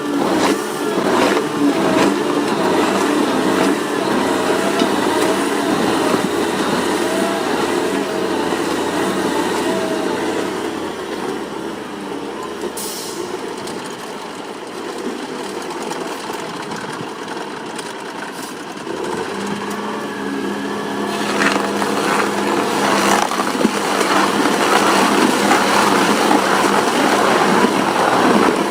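Heavy machinery running with its engine under changing load, the sound easing off for several seconds in the middle and building again near the end.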